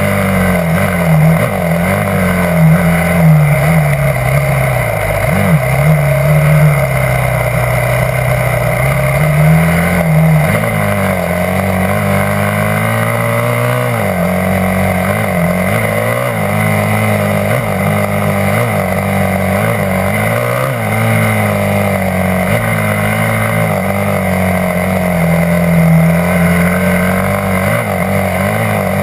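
Yamaha YZ250F dirt bike's single-cylinder four-stroke engine running through the ride, its pitch rising and falling again and again as the throttle is opened and closed, with quick short blips in the middle stretch.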